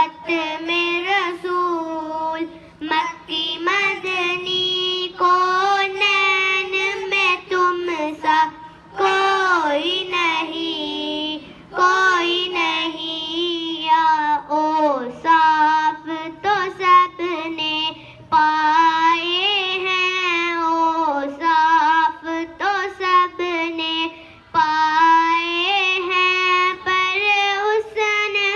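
A boy singing a naat, an Urdu devotional song in praise of the Prophet Muhammad, into a microphone with no instruments. He sings in long held, ornamented phrases separated by short pauses for breath.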